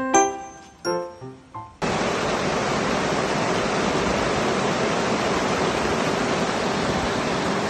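A few seconds of piano music that cut off abruptly, then a steady, even hiss of food, most likely meat, sizzling on a grill.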